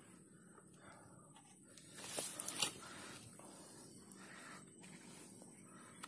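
Faint rustling of clothing and gear being handled, with a few soft clicks about two seconds in, over a quiet outdoor background.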